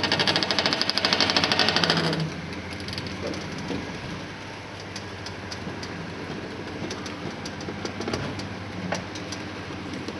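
Rotating dome's gear-motor drive running with a steady hum; for the first two seconds a loud, rapid clattering, after which it runs quieter with scattered sharp clicks. These are the abnormal drive noises from the gear motor and tyres that the owner puts down to the dome being slightly out of round.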